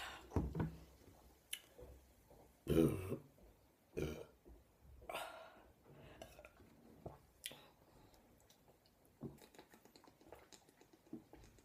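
A woman burping several times from the gas of the cola she drank, the burps coming a second or two apart with the loudest about three seconds in, and small mouth and throat clicks between them.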